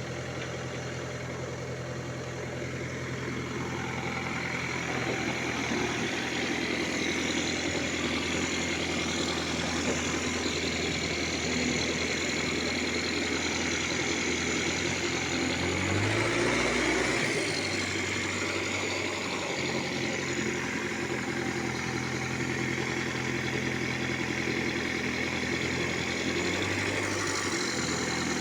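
Case 851 backhoe loader's diesel engine running steadily at idle, its pitch changing briefly about sixteen seconds in and again near the end.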